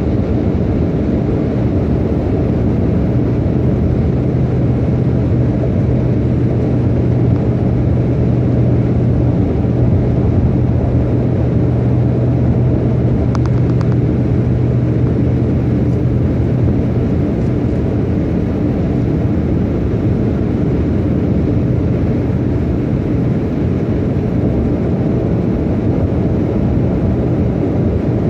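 Road noise inside a car cruising at highway speed: a steady low rumble of tyres and engine. A low, even hum sits on top of it from a few seconds in until about halfway.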